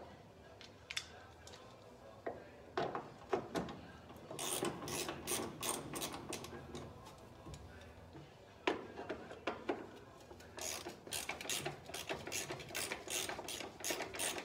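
Ratchet wrench clicking as bolts are backed out of a car's steel firewall, the bolts that hold the ballast resistors. It comes in two quick runs of clicks, one from about four seconds in and one from about ten seconds in, with a few single clicks and knocks of the tool between them.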